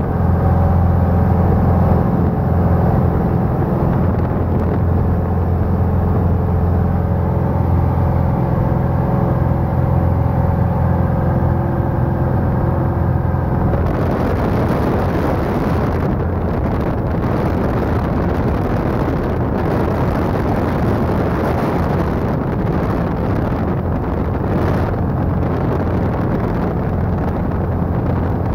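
Light single-engine airplane's piston engine and propeller droning steadily, heard inside the cabin. About halfway through, a louder rushing air noise spreads over the drone.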